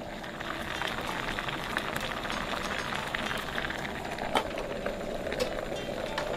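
Irizake, sake with dashi and pickled plum, boiling hard in a hammered metal saucepan: steady bubbling with many small pops and one sharper pop about four seconds in.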